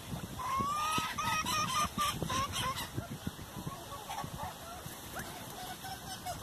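Bantam chickens and golden pheasants feeding on shredded lettuce: a run of short calls in the first three seconds or so, then fewer, over frequent quick taps of beaks pecking at the lettuce on a stone slab.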